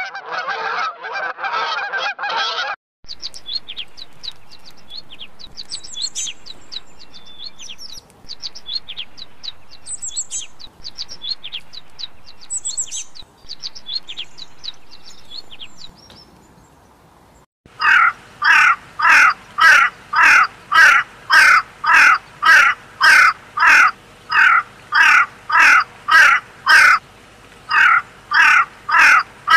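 Waterfowl honking for the first few seconds, then a small songbird chirping rapidly in high, quick notes. From about two-thirds of the way in, a crow caws over and over in a steady rhythm, about three caws every two seconds.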